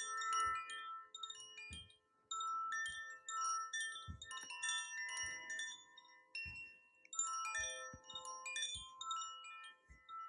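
Wind chimes tinkling softly, with bright ringing notes overlapping in irregular clusters and short pauses between them.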